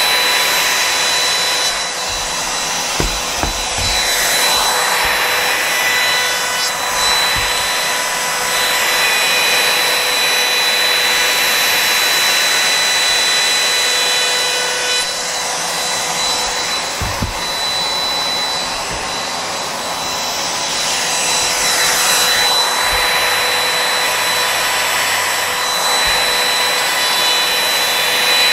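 Makita compact router running at speed, its bit cutting along the curved edge of an 18 mm MDF panel: a steady high whine over a hiss, with a dust extractor drawing through the hose on the router.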